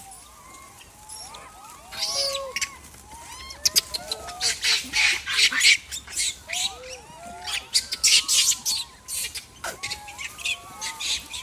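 A troop of wild macaques making many short, overlapping squeaks and coos, each call rising and falling in pitch, with short noisy bursts mixed in.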